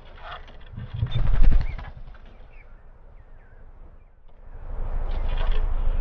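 Low rumbling buffets of wind on the microphone: one loud gust about a second in, and steadier rumbling from about five seconds on. Between them come a few faint, short, high bird chirps.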